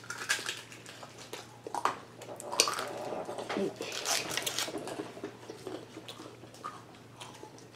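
Close-miked chewing of a mouthful of noodles: irregular wet smacks and mouth clicks.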